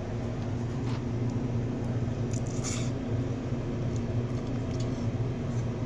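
A steady low mechanical hum, like a fan or cooling unit running, with a few faint soft clicks and rustles about two to three seconds in.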